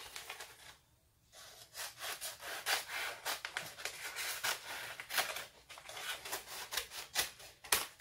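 A clear plastic transfer sheet rustling and crinkling as it is handled. The crackly scraping starts about a second and a half in, runs on irregularly, and has a sharper crack near the end.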